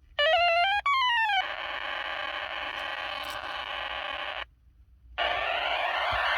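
1980s electronic sound-effects keychain playing its synthesized effects. First comes a short warbling tone that climbs and then dips, then a steady harsh buzz for about three seconds. After a brief break, a siren-like sweeping wail starts near the end.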